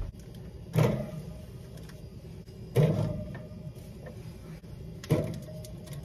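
Bottles of cranberry juice being set down one at a time onto a mini fridge's wire shelf: three clunks about two seconds apart.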